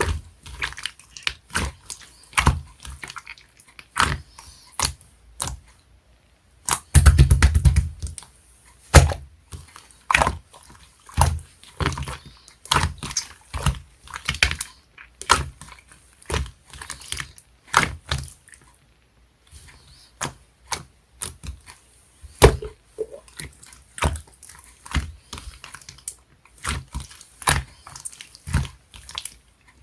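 Clear, jelly-textured slime being squeezed and pressed by hand, giving a steady run of crisp pops and clicks as air pockets burst, with a fast, loud flurry of pops about seven seconds in.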